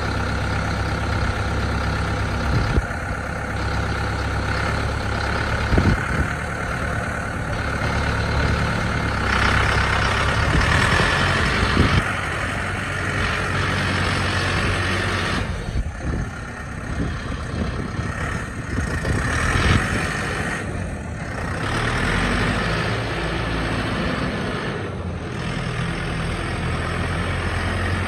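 A Taiyue 804 80 hp tractor's diesel engine running as the tractor is driven about, its sound swelling and fading a little. There are a few brief knocks.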